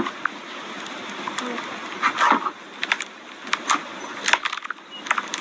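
Slime being pressed and worked by hand, making many irregular sharp clicks and crackling pops, played back from a slime video.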